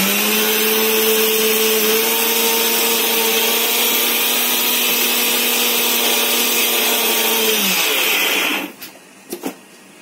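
Electric mixer-grinder running with its small steel dry-grinding jar, milling whole spices and turmeric into fine powder: a steady motor whine that is switched off about eight seconds in and spins down to a stop.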